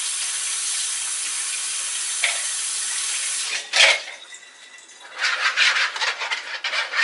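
Kitchen tap running steadily into the sink, shut off about three and a half seconds in with a clunk. A second or so later, a spoon starts scraping quickly and unevenly around the inside of a plastic container as something is stirred, a rasping sound.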